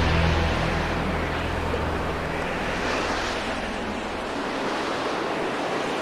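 Ocean surf: waves breaking and washing, one surge swelling about halfway through, as the tail of the music fades out in the first second.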